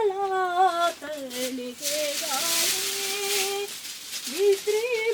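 A person humming or singing a wordless tune, holding and bending notes, with a rustling hiss partway through.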